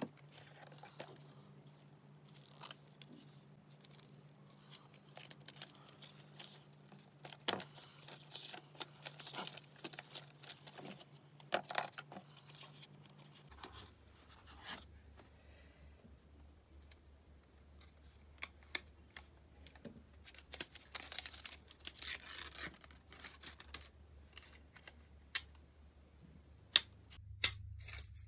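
Close-up unboxing handling of an Apple iPad box and its accessories: scattered taps and clicks of the tablet, the USB power adapter and the cardboard tray against the desk, with stretches of paper and cardboard rustling and scraping. There are two sharp clicks near the end, and a faint low hum underneath.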